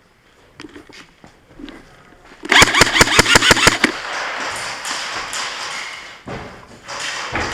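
Airsoft gun firing a quick string of about ten sharp shots in a second and a half, starting about two and a half seconds in, after a few faint clicks. A steady rushing noise follows.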